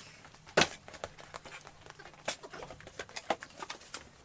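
Bamboo-fibre tableware being handled: irregular light taps and clicks, the sharpest about half a second in.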